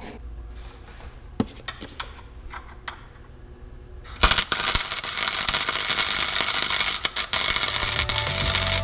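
MIG welder arc crackling steadily as a bead is laid on a homemade steel turbo exhaust manifold, starting suddenly about four seconds in after a few faint handling clicks.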